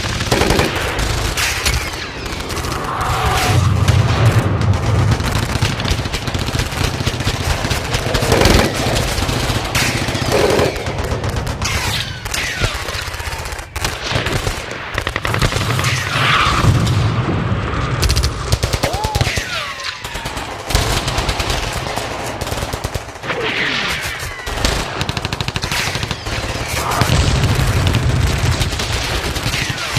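Battle sound effect: dense, continuous gunfire with rapid machine-gun bursts and scattered single shots over a low rumble.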